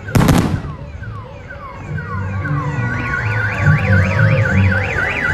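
A single firework bang right at the start, then a car alarm sounding: a run of repeated falling tones, switching about three seconds in to a fast up-and-down warble.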